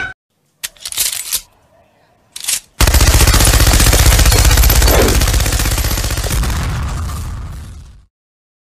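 Machine-gun sound effect: two short bursts, then a long continuous rattle of rapid shots lasting about five seconds that fades away.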